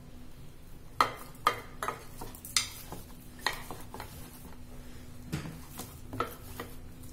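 Hand kneading a stiff gram-flour and coriander dough in a ceramic bowl, with soft squishing and about eight irregular sharp clinks and knocks against the bowl. A faint steady hum runs underneath.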